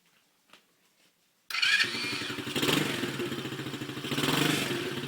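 A newly assembled TDR 90cc four-stroke pit bike's engine started on the electric starter about a second and a half in, catching at once and running on, with two brief rises in level. This is the bike's first start after assembly.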